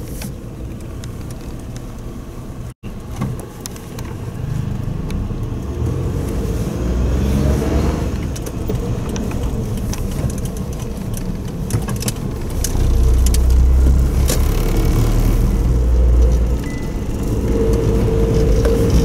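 Suzuki Jimny driving slowly, heard from inside the cabin: a steady low engine and road rumble with scattered light clicks and rattles. The rumble grows heavier for a few seconds from about halfway through.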